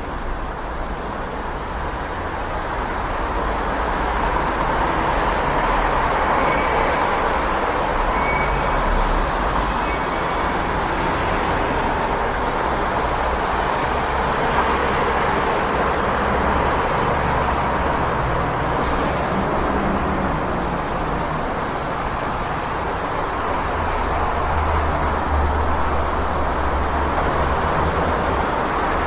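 City street traffic: a steady wash of passing cars and engines with a low rumble beneath, swelling slightly over the first few seconds.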